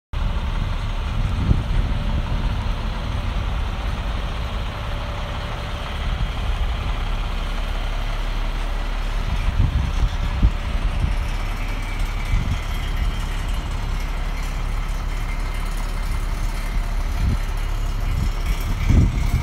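Freightliner M2 106 medium-duty diesel truck idling steadily, with wind buffeting the microphone in irregular gusts.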